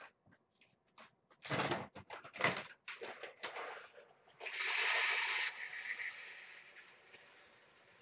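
Rustling and clicks of a food bag being handled, then dry cat food poured into a bowl in a dense rattle for about a second, stopping suddenly about halfway through.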